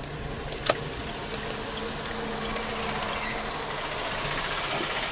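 Steady engine and road noise inside a moving car, slowly growing louder, with a buzzing engine note from an oncoming auto-rickshaw. A single sharp click comes about two-thirds of a second in.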